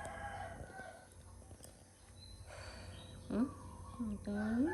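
A rooster crowing faintly in the background, with a person's voice coming in near the end.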